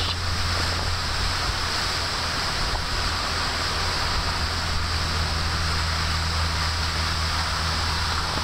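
Fishing boat's engine running steadily under way, a low even hum, with a constant rush of wind and water over it.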